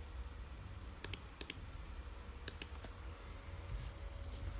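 Short, sharp clicks of a computer mouse and keyboard, in close pairs about a second apart, over a faint steady background hum with a thin high whine.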